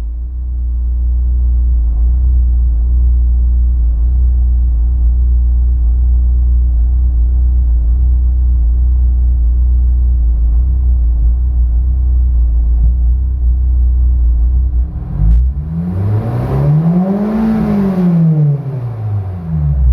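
Honda S2000 inline-four engine idling for about fifteen seconds, then revved once in neutral, rising and falling back to idle, with a click just before the rev. The owner says the idle is unstable and takes the misfire to show only at idle, not under revving.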